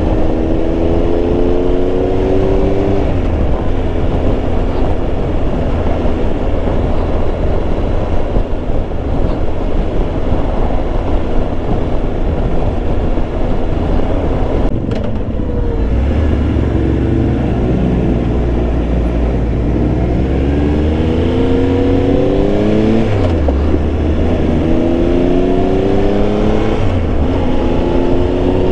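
Triumph Tiger Explorer 1200's three-cylinder engine accelerating through the gears over a steady rush of wind and road noise. Its pitch climbs and drops back at each gear change, once near the start and several times in the second half.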